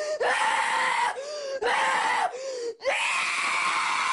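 Loud screaming in three long bursts with short breaks between them, the pitch wavering up and down in each.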